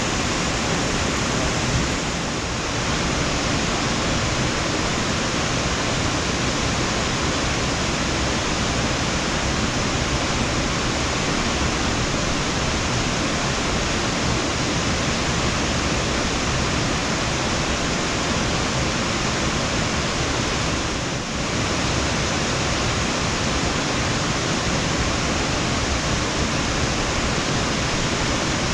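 Steady, even hiss of noise, dipping briefly twice: about two seconds in and again about twenty-one seconds in.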